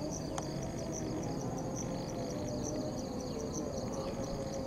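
Insects chirping in a fast, even pulsing rhythm over the low, steady rumble of a diesel locomotive arriving slowly.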